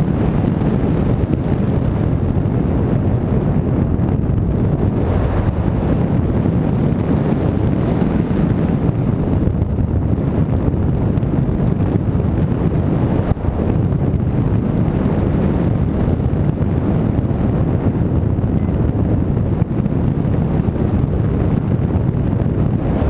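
Loud, steady rush of wind buffeting the microphone, with no clear motor tone.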